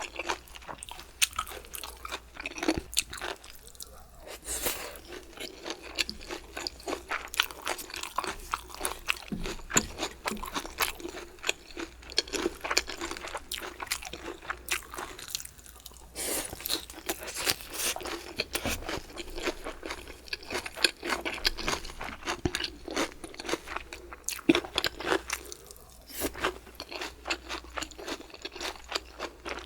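Close-miked chewing of crunchy food: a dense run of crisp crunches and mouth sounds with a few short pauses, over a faint steady low microphone hum.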